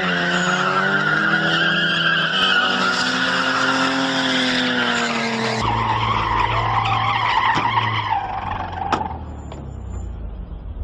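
Cars drifting: engines revving up and down under loud tire squeal for about the first five seconds, then a lower engine rumble with tire noise. A couple of sharp knocks sound near the end, as a body panel comes loose.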